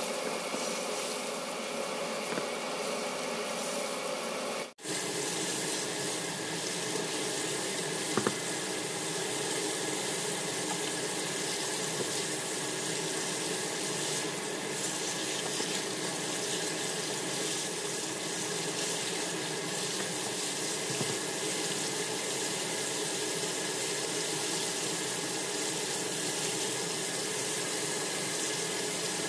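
Hot oil sizzling and bubbling steadily as battered chicken pieces deep-fry in a small pot. One sharp tap about eight seconds in, and a brief break in the sound about five seconds in.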